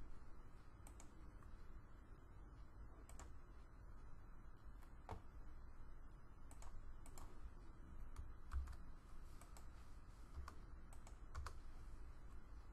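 Faint, irregular keystrokes and clicks on a computer keyboard, spaced about a second apart, over a low steady hum.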